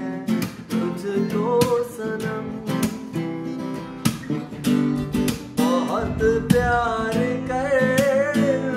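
Music: an acoustic guitar strummed in a steady rhythm, with a wavering sung melody over the chords.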